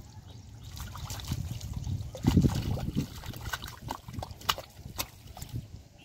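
Hands sloshing and squelching in shallow, muddy water as wriggling eel-like fish are grabbed, with irregular splashes and wet slaps, loudest about two seconds in.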